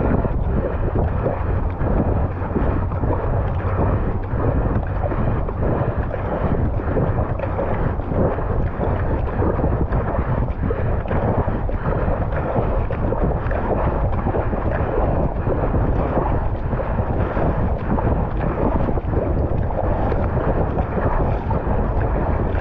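Steady wind buffeting on the microphone over rushing and splashing water as a surfski is paddled hard, the paddle blades splashing with each stroke.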